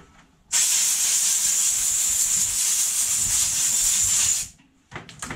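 Compressed-air blow gun giving one steady blast of about four seconds, starting about half a second in, blowing reaming shavings out of a radius arm's freshly reamed bronze bush. A few light clicks follow near the end.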